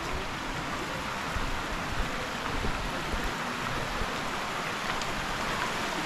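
Shallow stream running over stones: a steady rush of water.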